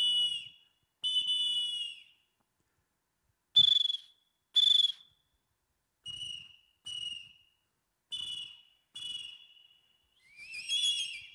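Crossrina cross ocarina blown through its double-edge bottom: whistle notes of two close pitches sounding together. First comes a long note of about a second, then two short loud blasts, then four shorter toots in pairs, and near the end a warbling trill.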